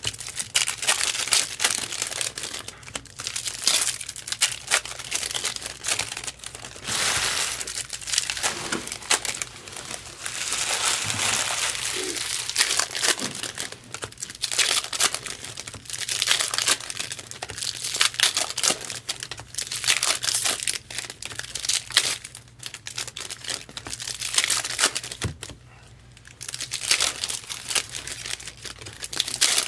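Trading-card pack wrappers being torn open and crinkled, with cards pulled out and handled, in repeated crackling bursts.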